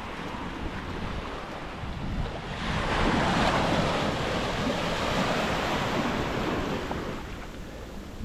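Ocean waves breaking on a beach: a surge of surf swells about three seconds in and washes out again toward the end, with wind on the microphone.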